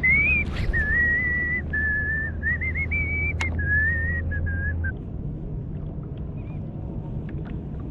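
A person whistling a tune: a string of held notes that step up and down, stopping about five seconds in, over a steady low hum. A single sharp click sounds partway through.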